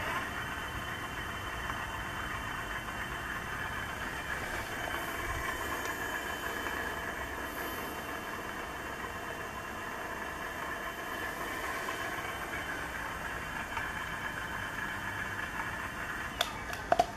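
A 36V 250W brushless geared front hub motor spins a 20-inch wheel with no load. It makes a steady whine, held at its limited top speed of about 13 mph. A few sharp clicks come near the end.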